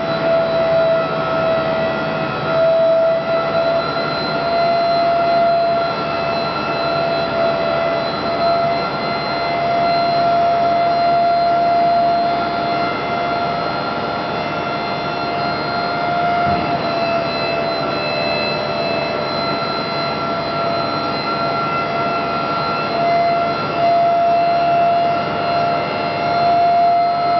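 The dump hoist's motor on a custom tilting hopper truck body, whining steadily as it raises the hopper. It makes one high, constant tone with overtones and holds at a nearly even pitch.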